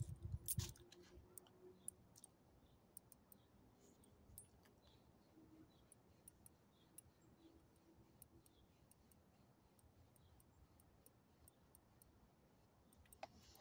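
Near silence: faint outdoor quiet with sparse small clicks spread through, after a couple of brief knocks in the first second.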